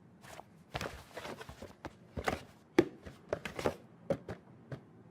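A series of light, irregular taps and knocks, about a dozen in all, with one sharper knock near the middle.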